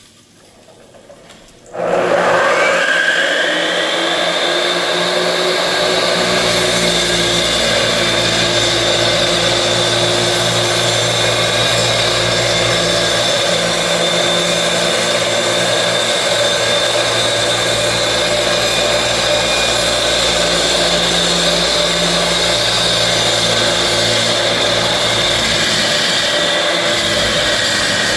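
Electric saw, run with water on the blade, switched on about two seconds in: its motor whines up to speed and then runs steadily and loudly.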